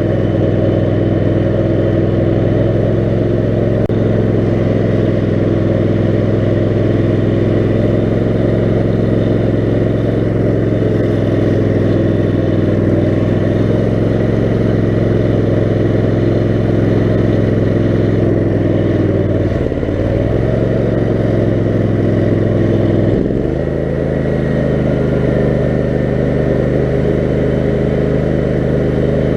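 The Kohler 18 HP Command engine of a 6x4 offroad lawn mower running steadily, with a brief dip in engine speed about twenty seconds in and another a few seconds later.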